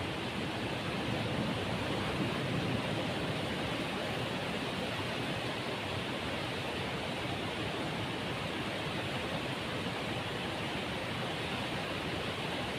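Surf washing onto a shallow beach: a steady, unbroken rushing noise of waves.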